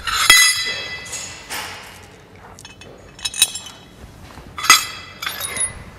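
Small steel M10 bolts and washers clinking against each other as they are picked out of a fitting kit by hand: one sharp ringing clink just after the start, then several lighter clinks and some rustling.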